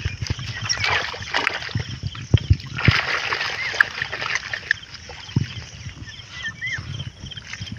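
Water splashing and streaming off a duari net fish trap as it is hauled out of a river, in bursts about a second in and again around three seconds in, with scattered knocks.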